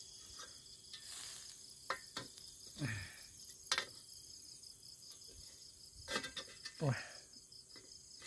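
Crickets chirping steadily, with a few sharp clicks and knocks as the bamboo grill clamp holding pork is flipped over a charcoal stove. Two short falling-pitch sounds come about three and seven seconds in.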